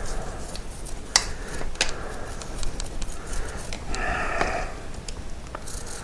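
Cloth wiping a motorcycle drive chain, with scattered sharp clicks from the chain's links and a brief voice-like sound about four seconds in.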